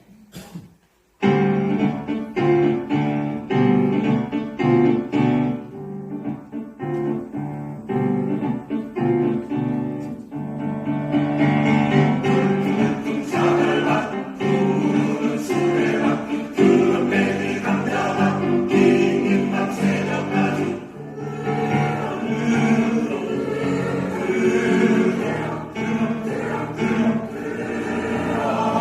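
Choir singing with piano accompaniment. It comes in abruptly about a second in with short, detached notes, and turns to fuller, sustained singing from about eleven seconds in.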